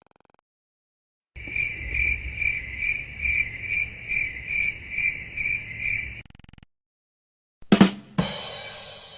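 Crickets chirping in a steady pulsing rhythm, a little over two chirps a second, for about five seconds. Near the end comes a drum hit followed by a cymbal wash dying away, like a rimshot sting.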